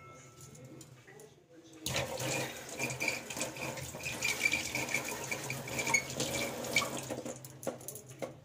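Kitchen tap running for about five seconds, starting about two seconds in.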